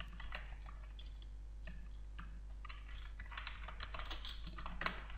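Typing on a computer keyboard: an irregular run of keystrokes entering text, over a steady low hum.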